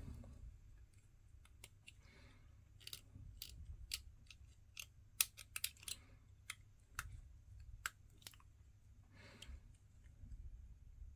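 Small hard-plastic miniature parts handled and pressed together by hand: scattered sharp little clicks and light scraping.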